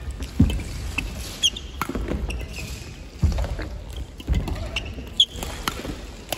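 Badminton singles rally: rackets striking the shuttlecock in sharp clicks, with sneakers squeaking and feet thudding on the wooden court floor.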